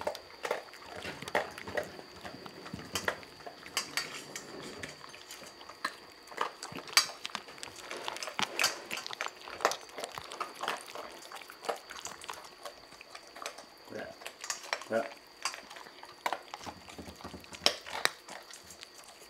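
Two cats eating from bowls: irregular crunching and licking, with light clicks and clinks of teeth and tongue against a ceramic bowl and a metal bowl.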